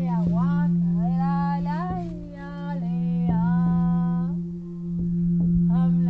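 A voice chanting long, sliding phrases in an invented language over a steady low drone. There are three phrases, a pause of over a second, and the chant picks up again near the end.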